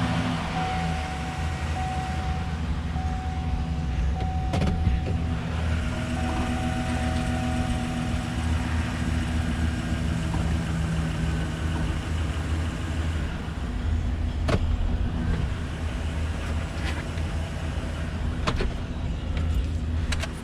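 Chevrolet car engine running at idle after a fresh start, a steady low hum, with a few sharp clicks. The car is being used in place of a bead breaker to break a motorcycle tyre's bead. The engine sound drops away right at the end.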